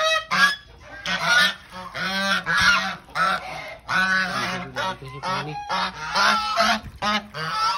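A group of domestic geese honking, call after call and overlapping one another, as they are let out of their pen.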